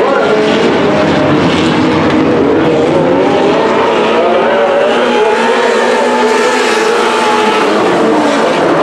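Several D2 sprint car engines running together at speed on a dirt oval. The engine notes rise and fall as the cars circle the track.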